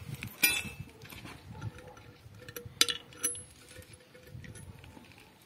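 Steel wheel-hub parts and pins of a walk-behind tractor clinking and knocking together as they are handled and fitted: a few sharp metallic clinks with a short ring, the loudest about half a second in and near three seconds in.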